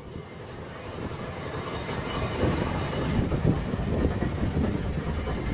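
Steady rumble of a boat under way: the engine running with wind buffeting the microphone. It fades in over the first couple of seconds.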